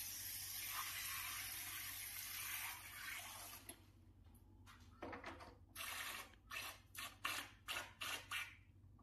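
A steady rushing hiss for about three and a half seconds. After a short lull comes a run of about eight short rushing bursts, roughly two a second: air being blown through an air conditioner's condensate drain hose in puffs to clear the dirt blocking it.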